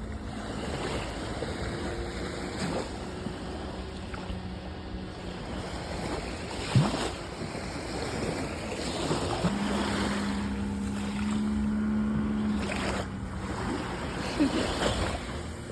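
Sea waves washing, with wind buffeting the microphone. A steady low hum joins for about three seconds in the middle.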